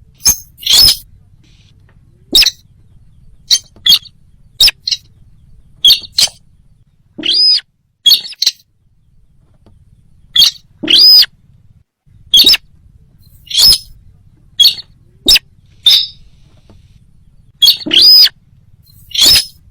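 Bird lure call for the sintar bird: short, sharp calls repeated at irregular intervals, roughly one every second, several with an arched note rising and falling near the top. The calls are very loud, near the point of distortion, with the abrupt gaps of an edited recording.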